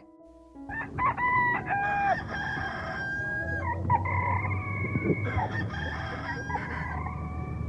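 Rooster crowing several times in succession, starting about a second in, with one long drawn-out crow in the middle.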